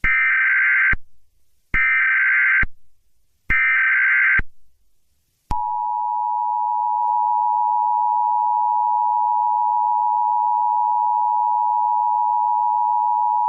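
Emergency Alert System broadcast tones: three short bursts of the SAME digital header data, each about a second long, then, from about five seconds in, the steady two-tone attention signal announcing an incoming alert.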